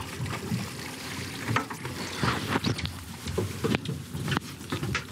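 Water splashing and sloshing at a boat's side as a hooked salmon thrashes at the surface beside the landing net, with irregular knocks and splashes.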